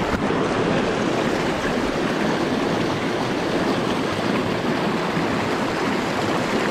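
Small mountain freestone creek rushing over boulders in a riffle close by: a steady, even rush of white water.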